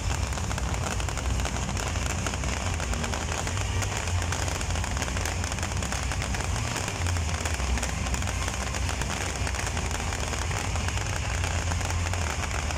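Aerial fireworks firing in a dense, continuous barrage of rapid crackles and bangs over a steady low rumble.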